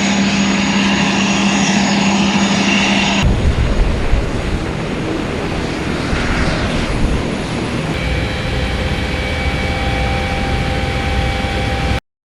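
Military helicopter or tiltrotor engines and rotors running: a steady turbine hum and whine over a low rotor rumble. It comes in three spliced clips that change abruptly about three seconds in and again about eight seconds in, and it cuts off sharply near the end.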